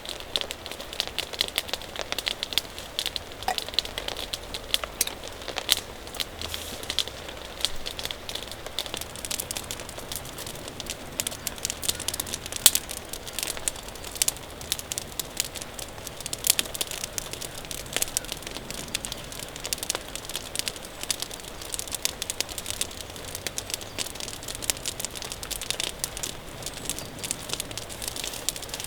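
Campfire crackling, with dense irregular pops and snaps throughout.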